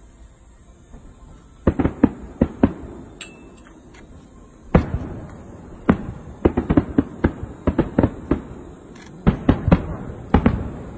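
Fireworks shells bursting overhead: a string of about twenty sharp bangs in quick clusters, starting a couple of seconds in, each with a brief echoing tail.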